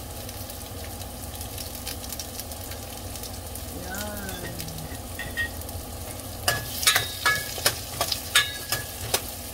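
Onion chunks sizzling in oil in a stainless steel pot. From about six and a half seconds in, a run of sharp clinks and scrapes as a metal ladle stirs them against the pot.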